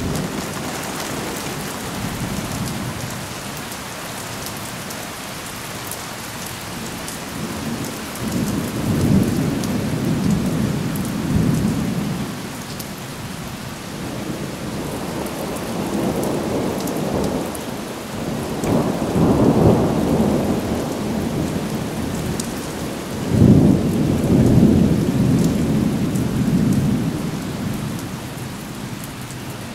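Thunder rolling several times over steady rain: long, low rumbles that swell and fade, the loudest starting abruptly about three quarters of the way through.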